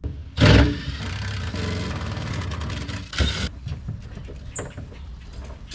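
Cordless power tool motor running for about three seconds at the fuel pump opening, starting with a loud knock and then stopping abruptly, followed by a few light clicks and rustles.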